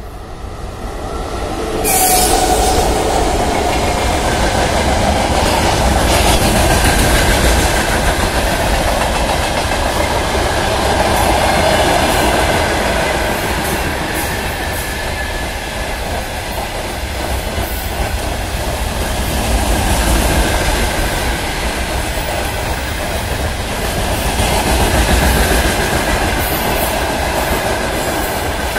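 VL11.8 electric locomotive drawing up and passing, then a long freight train of loaded wagons rolling by, the wheels clattering over the rail joints. The noise grows over the first two seconds as the locomotive nears and then stays loud, with a thin steady squeal from the wheels running over the clatter.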